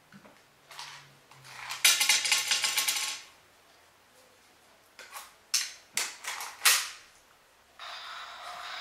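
Toy gun caps going off: a rapid crackle of small pops lasting about a second, then five or six separate sharp cracks a few tenths of a second apart. A steady hiss starts near the end.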